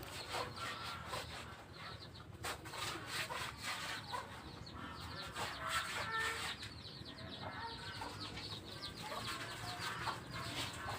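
Chickens clucking repeatedly, amid many short, sharp crackles.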